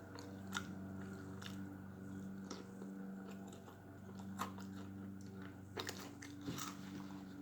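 A person chewing a crunchy Cheetos-crusted chicken sandwich close to the microphone, with irregular crunches and mouth smacks. A steady low hum runs underneath.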